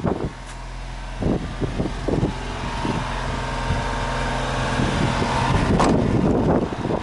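Honda Acty kei truck's engine idling steadily, with a few knocks and wind buffeting the microphone, the wind growing louder near the end.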